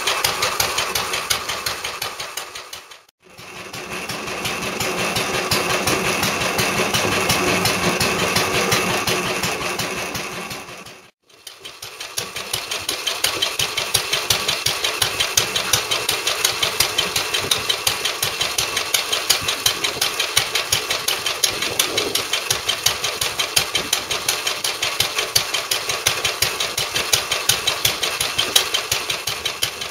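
Lister D single-cylinder engine driving a cement mixer, running with a fast, even beat of firing strokes. The sound dips out briefly twice.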